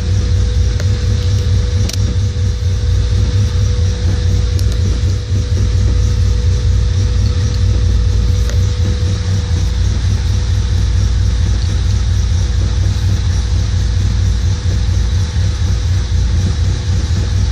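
Honda B16A2 1.6-litre DOHC VTEC four-cylinder engine idling, heard from inside the car: a steady low rumble with a steady whine above it. This is the idle the owner reports problems with.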